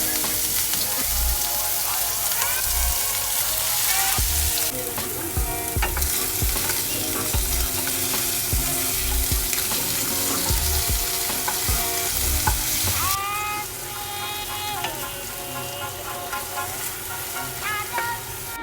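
Food frying and sizzling in a hot pan, the sizzle growing softer about thirteen seconds in. Background music plays under it.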